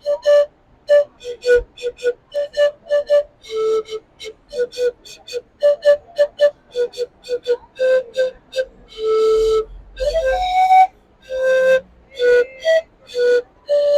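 Rondador, an Andean panpipe, played in a quick tune of short breathy notes that step between a few pitches. A few longer held notes come about two-thirds of the way in, one of them rising.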